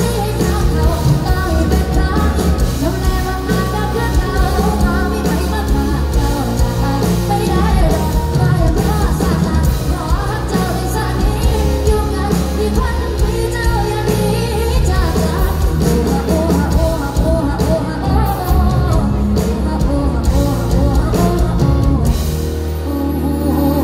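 Live pop-rock band with a female lead singer, backed by drums and keyboard. Near the end the drums drop out and the band falls back to a softer passage of held notes.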